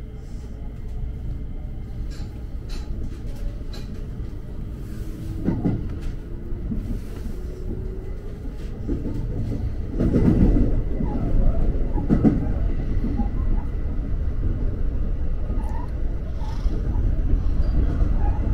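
Electric commuter train running on the line, heard from inside the front car: a steady low rumble of wheels on rails with a few clanks over rail joints, growing louder a little past halfway.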